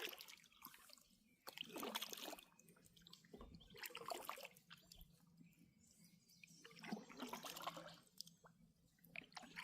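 Faint water sloshing and dripping from a kayak paddle on a slow creek, in soft swells that come and go about every two to three seconds.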